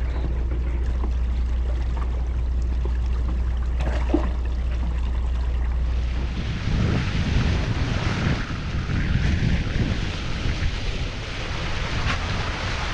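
Water noise from a sailing yacht's bow moving through the sea. For the first six seconds there is a steady low hum with a few faint ticks. Then the sound changes suddenly to louder, uneven splashing and rushing as the bow cuts through choppy waves, with wind on the microphone.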